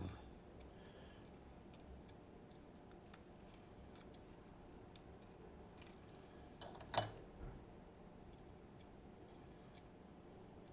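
Faint scattered clicks and light metal taps of small lock parts being handled while an ABUS TS 5000 pin tumbler cylinder is taken apart, with one louder, short ringing clink about seven seconds in.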